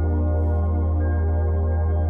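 Ambient background music: sustained, slowly shifting tones over a steady low drone, with a new higher tone entering about a second in.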